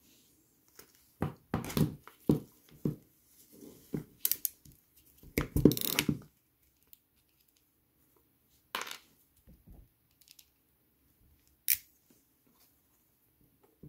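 A plastic bag of small metal flat-connector terminals being handled: a run of crinkling rustles and small metallic clinks, loudest near the end of the run. After that come a few separate clicks and knocks as the Knipex MultiCrimp crimping pliers are handled.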